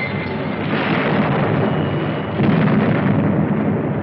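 Battle sound on an old film soundtrack: a dense, continuous din of artillery fire and explosions, with a louder blast swelling up about two and a half seconds in.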